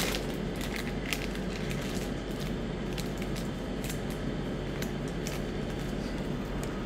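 Foil wrapper of a Magic: The Gathering booster pack crinkling and crackling as it is torn open and the stack of cards is slid out, in scattered sharp crinkles over a steady background hum.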